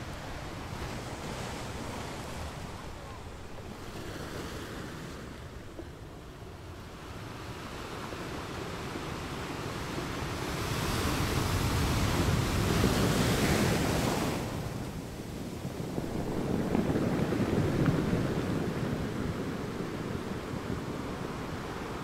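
Ocean surf breaking and washing up a sandy beach. It swells loudest twice, once just past halfway and again a few seconds later.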